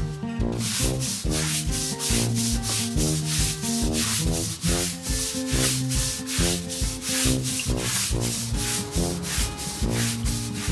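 Long-handled, stiff-bristled deck brush scrubbing a ceramic tile floor in repeated back-and-forth strokes. Background music with a melody and steady beat plays underneath.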